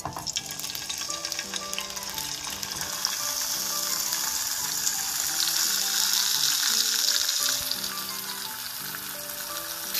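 Turmeric-coated hilsa fish head and pieces sizzling in hot oil in a frying pan. The sizzle starts the moment they go in and is loudest about halfway through. Soft background music plays underneath.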